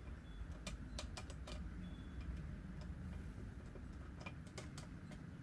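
Small sharp clicks of metal picks working at a VW Scirocco ignition lock barrel held in a vise: a quick run of clicks in the first second or so, a few more about four seconds in, over a low steady hum.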